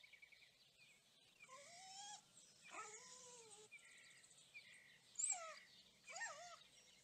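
A dog whining faintly: about four short whines that bend up and down in pitch, the loudest about five seconds in.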